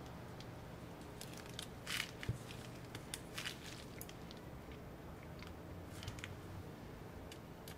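Faint scattered small clicks and scratchy crackles of hand work on a MacBook Air's keyboard assembly, with small tools and parts being handled, over a low steady background.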